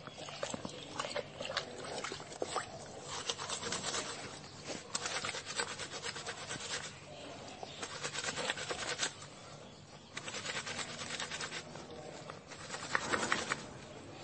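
Hands scrubbing and squeezing a wet cotton T-shirt in a plastic bucket of water: runs of quick rubbing strokes in bursts, with a louder spell near the end.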